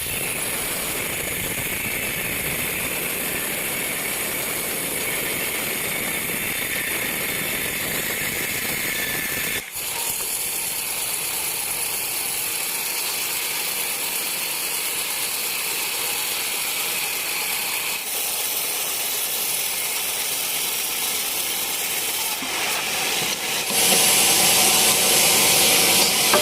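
Sawmill band saw running and cutting a teak log: a steady mechanical noise that gets louder about 24 seconds in.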